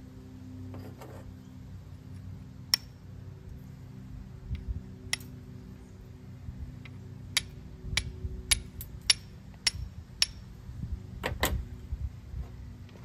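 Flint and steel: a hand steel made from a Nicholson file struck again and again against the sharp edge of a rock, about a dozen sharp clicking strikes, few at first and quicker from midway. The many strikes go into lighting hard, poorly reactive char cloth.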